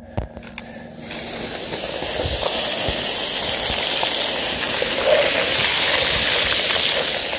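Loose scree rushing and crunching underfoot while scree-skiing down a steep slope: a few clicks, then about a second in a loud, steady hiss with many small crunches in it sets in and holds.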